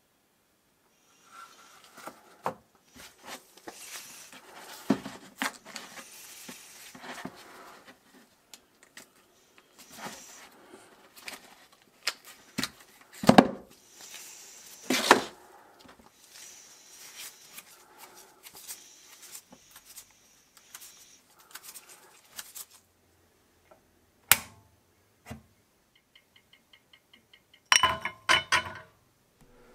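Handling sounds from a silicone lure mold and a metal mold-box frame on a work surface: rubbing, taps and a few sharp knocks, the loudest a little past the middle. Near the end a quick run of faint ticks, then a metal tool scraping and clattering inside a metal melting pot.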